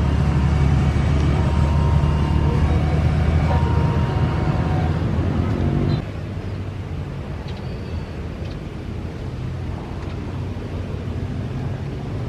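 Twin-engine jet airliner's engines rumbling at takeoff thrust as it climbs away, with faint steady whining tones above the low rumble. About six seconds in the sound cuts abruptly to a quieter, steady rumble from a second jet airliner approaching to land.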